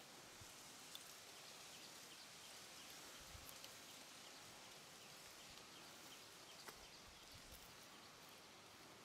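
Near silence: faint outdoor background with a few soft ticks.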